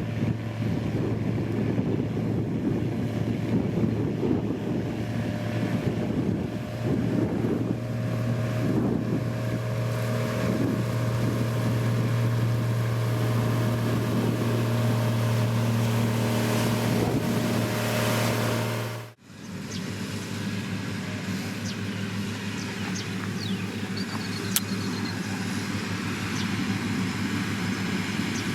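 Heavy road-construction machinery engines running steadily, as a grader or road roller works. About two-thirds of the way through, the sound cuts out for a moment and comes back as a different engine with a higher steady note.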